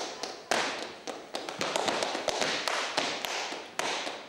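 Dance footwork: hard shoes striking a wooden studio floor in quick, irregular taps and stamps.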